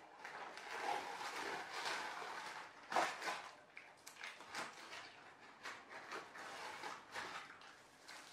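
Cardboard Happy Meal box being handled and opened, with paper rustling and crackling in irregular bursts, the loudest a sharp crackle about three seconds in.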